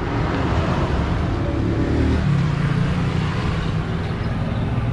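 A motor vehicle's engine running close by, its pitch shifting about two seconds in, over steady street noise.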